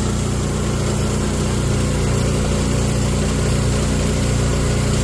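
Gasoline DC generator set's engine running at a steady speed while it charges a lithium battery bank.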